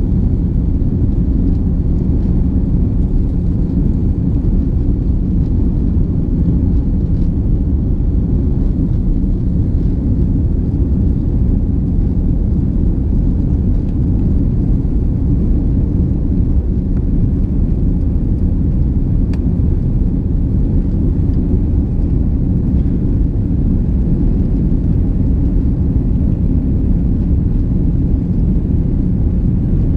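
Steady low rumble inside a jet airliner's cabin during the climb after takeoff: engine and airflow noise heard through the fuselage.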